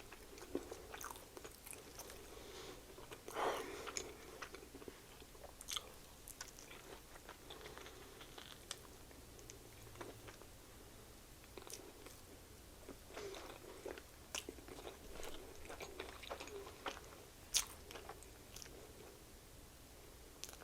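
Close-up mouth sounds of someone eating a chicken sandwich: irregular wet chewing and smacking with occasional louder bites, the sharpest about three and a half seconds in and again near the end.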